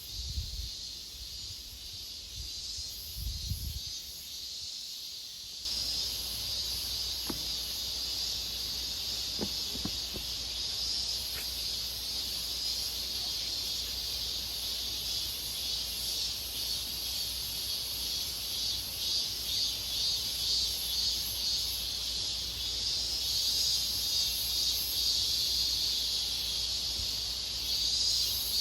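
Insect chorus: a steady, high buzzing drone that pulses rhythmically, growing stronger in the second half. About six seconds in it is joined by a steady low rumble.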